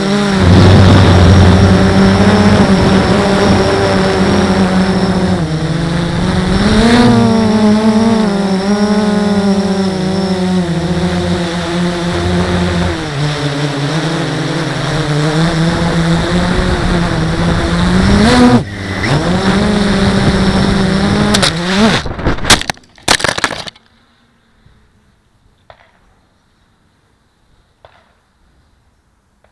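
Blade 350 QX quadcopter's four brushless motors and propellers whining loudly, the pitch stepping up and down with the throttle. About three-quarters of the way through come a few sharp cracks as the quadcopter crashes into power lines and the motors cut out abruptly, leaving quiet with a few faint ticks.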